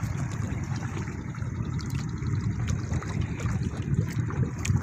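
Sea water lapping and trickling around a small fishing boat, over a steady low rumble, with scattered small knocks.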